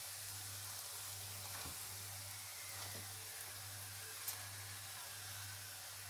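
Faint steady sizzle of a lachha paratha frying in ghee in a hot pan, over a low steady hum, with one light tap about four seconds in.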